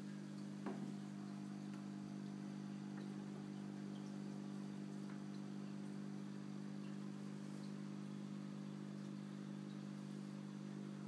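Aquarium pump running with a faint, steady low electric hum, and a brief click just under a second in.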